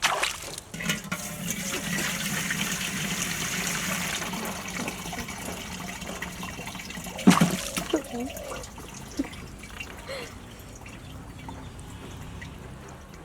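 Water rushing and splashing steadily for several seconds, easing off, with one sharp splash or thump about seven seconds in.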